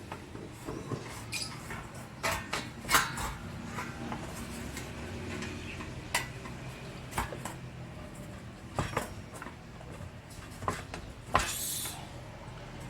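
Scattered metallic clicks and clinks of a hand tool working at a stuck screw on a roti maker's metal casing, with a longer scrape near the end; the screw is seized and won't come loose.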